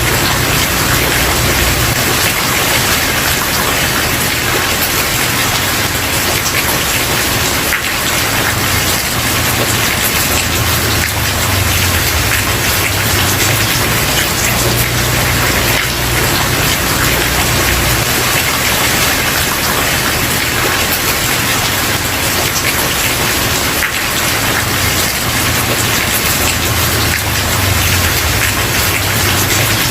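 Steady rain falling on a wooden porch, a dense even patter, with a low rumble underneath that swells and fades.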